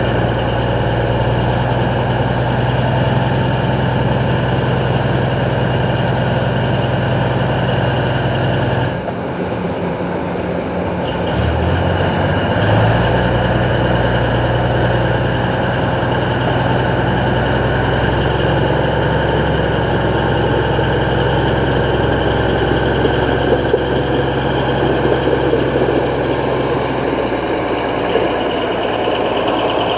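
Heavy diesel engine running steadily. About nine seconds in its note drops away, then it picks back up with a rise in pitch over the next few seconds and settles into a steady run again.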